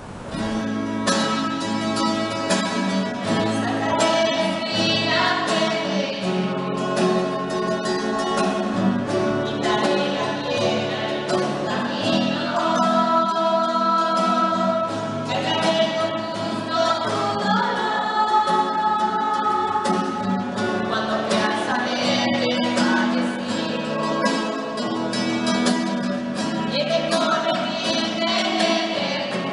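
A small group of women and children singing together, accompanied by a strummed acoustic guitar.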